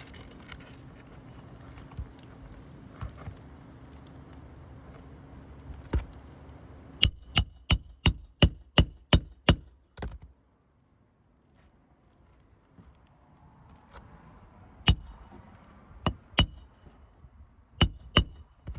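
Hammer driving roofing nails into a replacement asphalt shingle: a quick run of about eight ringing strikes, then after a pause a few more single strikes.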